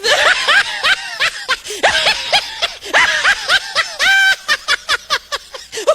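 A high-pitched voice making rapid short rising-and-falling calls, several a second, like giggling, with one longer held call about four seconds in.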